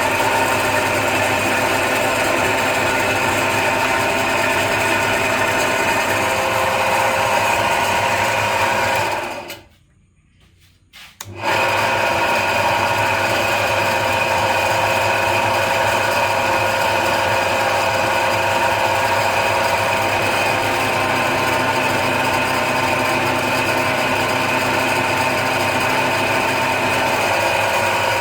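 A machine motor running steadily with a constant whine. About a third of the way in it cuts out for a couple of seconds, then resumes at the same pitch.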